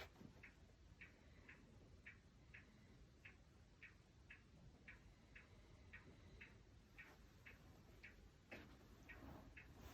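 Faint, regular ticking, about two ticks a second.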